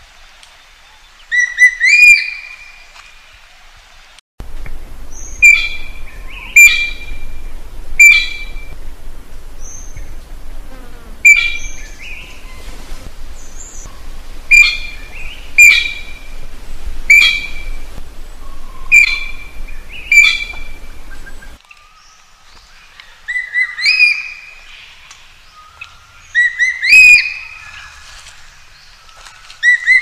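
A blue magpie calling: short, loud calls repeated every second or so, often in pairs. Each call is a quick downward slur that lands on a ringing, whistled note. A low background rumble cuts in about four seconds in and stops abruptly near the 22-second mark.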